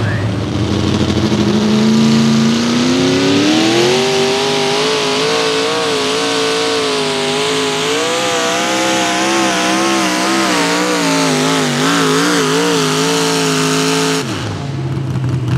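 Mini rod pulling tractor's engine at full throttle on a pull. Its pitch climbs over the first few seconds, then holds high and wavers up and down under the load, and cuts off abruptly near the end.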